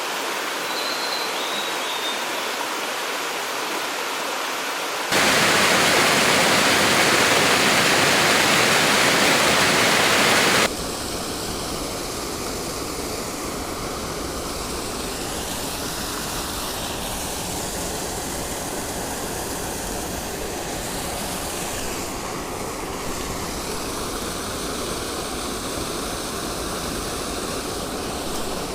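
Steady rush of a flowing mountain stream. About five seconds in it jumps suddenly louder and fuller for about five seconds, then drops back to a steady rush.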